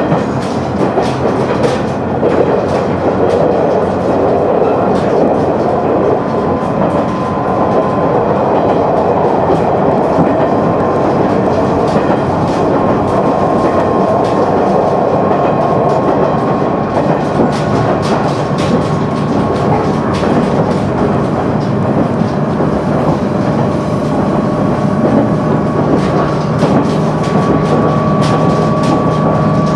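KiHa 100 diesel railcar running along the track: a steady rumble with wheel clicks over the rail joints, and a faint whine that climbs slowly in pitch.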